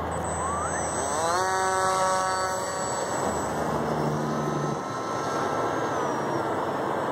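Small brushless electric motor (BlueWonder 1300Kv) spinning a GWS 8060 propeller: a rising whine as the throttle is opened for the hand launch, then held steady. After a break comes another steady whine that drops in pitch near the end. A steady hiss sits underneath.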